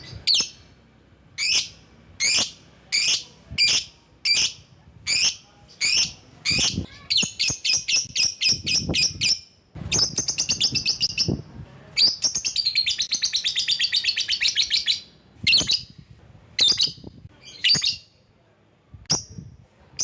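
Lovebird calling: sharp single chirps under a second apart, then rapid chattering trills, the longest held about three seconds in the middle, then single chirps again.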